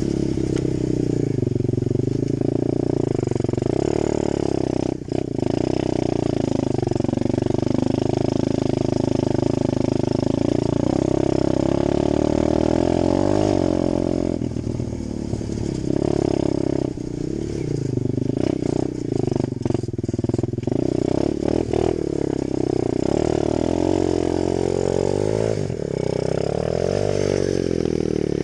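Apollo 125cc four-stroke single-cylinder dirt bike engine being ridden, its pitch rising and falling again and again as the throttle is opened and closed, with brief drops in revs a few times.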